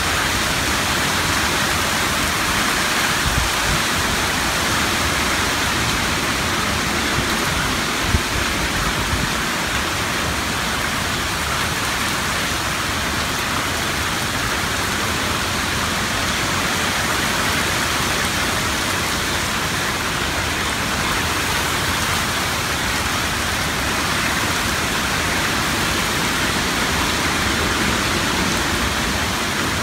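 Hurricane rain and wind, a steady rushing noise, with one brief thump about eight seconds in.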